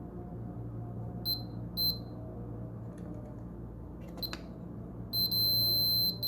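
Multimeter continuity buzzer beeping as the probes touch a fuse: three short beeps, then a steady beep of about a second near the end that shows the fuse conducts and is good.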